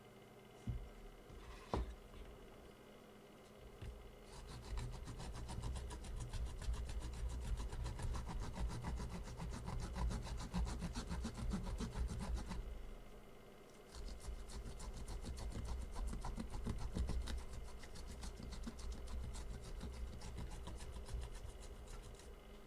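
Rapid back-and-forth scrubbing on the ECU's circuit board, in two long spells with a short pause between them. A couple of sharp clicks come just before the scrubbing starts.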